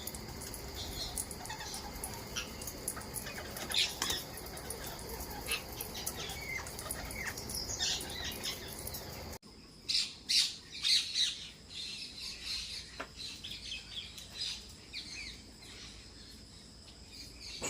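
Parrots squawking and chirping in many short calls over a steady outdoor background. About nine seconds in, the background drops away suddenly, and a burst of louder calls follows.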